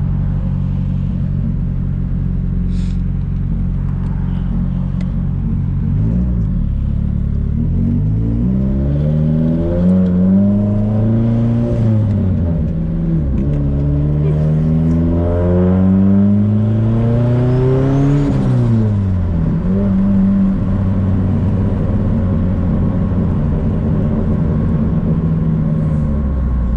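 Turbocharged four-cylinder engine of a Nissan S14 heard from inside the car, running steadily, then pulling up in pitch through a gear about six seconds in, dipping at a shift, and pulling up again. Near two-thirds of the way through it drops off and settles back to a steady cruise.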